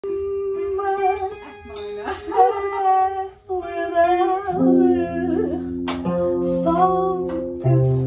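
Live band music: a woman singing over guitar, with held low chords filling out the sound about halfway through.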